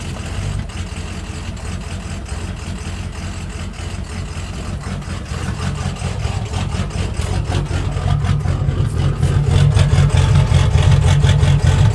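Ford 6.0 Power Stroke turbo-diesel V8 idling roughly in neutral. The owner blames the rough idle on bad tunes and plugged injectors. The engine sound grows louder over the second half.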